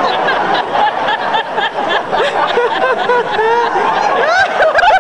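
Audience laughing and chuckling, in quick repeated bursts that swell about four seconds in.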